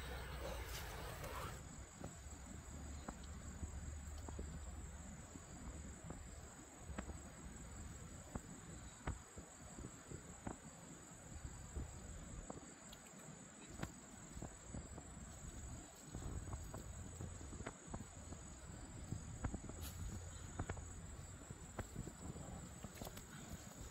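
Insects chirring steadily in a high, even drone, with scattered light clicks and taps.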